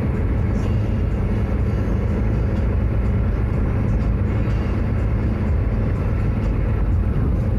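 Steady low road and engine rumble of a car cruising along a highway, heard from inside the cabin.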